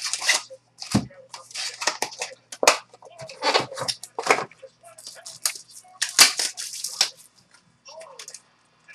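Trading-card packs and their cardboard box being handled and opened: a string of sharp crinkles, rustles and rips from the pack wrappers and box.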